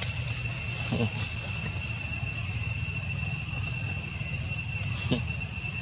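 Steady insect chorus, a high continuous trill, over a constant low rumble. Two brief faint chirps cut in, about a second in and again near the end.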